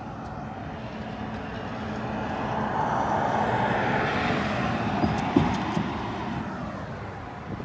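A road vehicle passing by: its engine and tyre noise swells to a peak about halfway through, then fades away.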